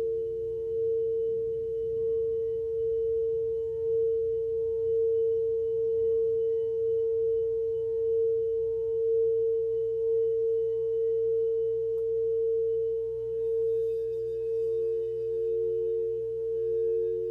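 Sustained 'grounding frequency' drone: a steady pure tone with a second, lower tone beneath it, swelling and easing gently in loudness. The lower tone comes back stronger near the end.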